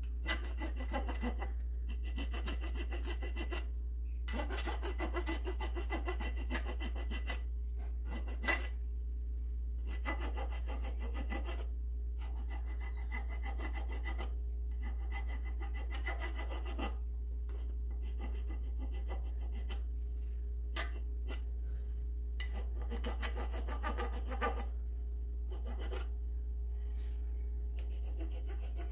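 Hand rasp filing the protruding wooden end of a new axe handle and its wedge flush with the top of the axe head's eye, in bouts of quick back-and-forth strokes with short pauses between. A single sharp tap comes about eight seconds in, and a steady low hum runs underneath.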